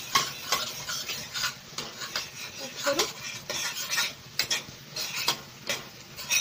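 Spatula stirring and scraping scrambled eggs around a kadhai in oil, in irregular strokes that knock and scrape against the pan, with a light sizzle underneath.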